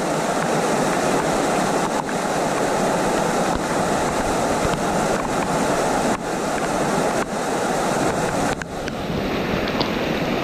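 Rushing water of river rapids: a steady, loud rush, with a few brief dips and a slight thinning of the hiss near the end.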